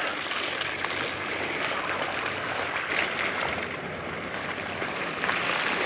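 Sea water sloshing and lapping against a breakwater, a steady wash of water noise with small irregular splashes.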